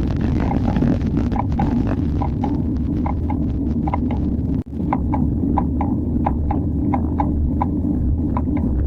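Bicycle making an abnormal clicking noise while being pedalled: short, sharp ticks repeating about three times a second over a steady low rumble of riding noise.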